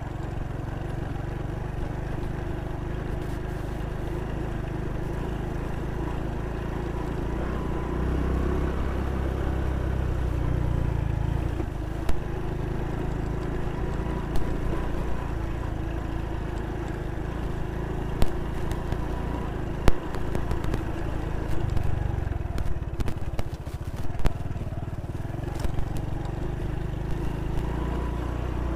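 Honda Pop 110i's small single-cylinder engine running steadily under way, with a steady low rumble. A few sharp knocks and rattles come in the second half, more of them near the end, as the bike goes over bumps on the rough dirt road.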